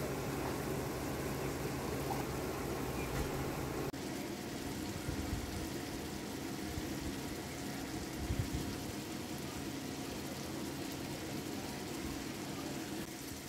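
Thick curry of taro stolons and shrimp simmering in a steel pan, a steady bubbling hiss that cuts off about four seconds in. After that, a steady low background hum with a few soft thumps.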